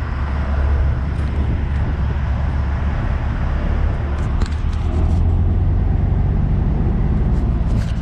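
Steady low rumble of idling vehicle engines, with a few light clicks about halfway through and again near the end.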